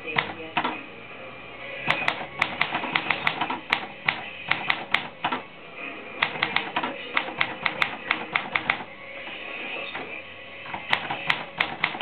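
Manual portable typewriter being typed on: runs of quick, sharp keystrokes, several a second, broken by pauses of a second or two, with music playing underneath.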